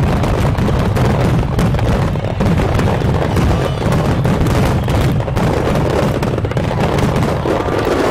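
Aerial firework shells bursting in quick succession: a continuous barrage of booms and sharp crackling reports over a low rumble, with no let-up.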